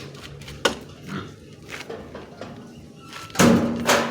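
Pigs in a pen: a few sharp knocks, then a loud, drawn-out pitched cry from a pig starting about three and a half seconds in.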